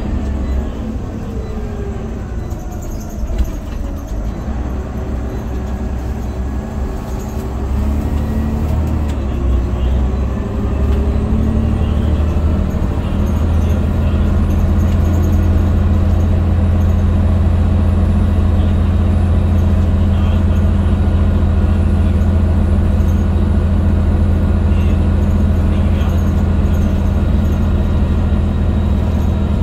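Scania OmniCity bus's diesel engine and drivetrain heard from inside the saloon, changing in pitch for the first dozen seconds, then running at a steady, louder drone for the rest.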